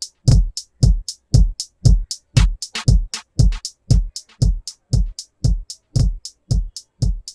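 Drum-machine loop playing through a compressor plugin: a deep kick drum about twice a second, with crisp hi-hat ticks between the kicks. It cuts off just before the end.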